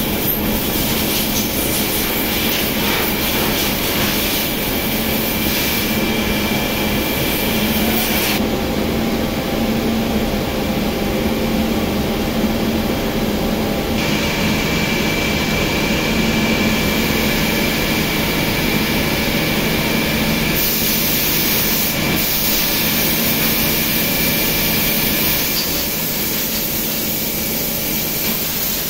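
Circular knitting machines running: a steady, loud mechanical drone with a low hum and a thin high whine over it.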